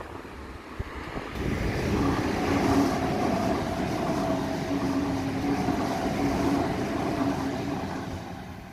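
Sydney Trains Waratah double-deck electric train passing close by on the tracks, its rumble and wheel noise building from about a second in, loudest around three seconds, then fading near the end. Over the rush runs a steady two-note hum from its electric traction motors.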